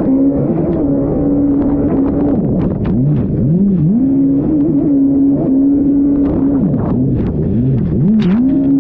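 Race jet ski engine running hard at high revs. It drops sharply in pitch and climbs back about three times as the throttle is chopped and reopened through the buoy turns, with water spray and wind noise over it.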